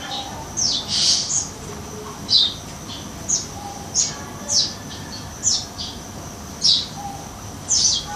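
Eurasian tree sparrow giving harsh, rasping chirps, each a short downward slide, about one a second with a quick cluster about a second in.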